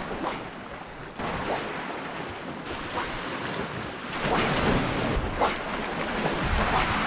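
Small sea waves washing and splashing over shoreline rocks, with wind buffeting the microphone. The wash swells louder about four seconds in.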